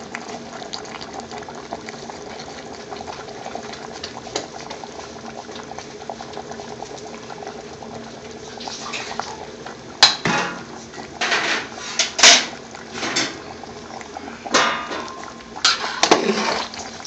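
A big stockpot of curry base gravy bubbling at a steady boil. From about ten seconds in, a metal ladle clanks and scrapes against the pot half a dozen times.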